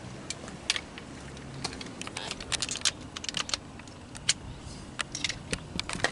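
Irregular sharp clicks and clinks of metal hand tools, a socket and ratchet being handled.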